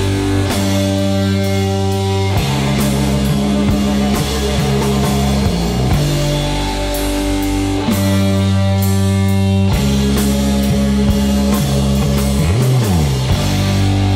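Rock music with guitar chords and a drum kit, the chords changing every couple of seconds; a low note slides down and back up near the end.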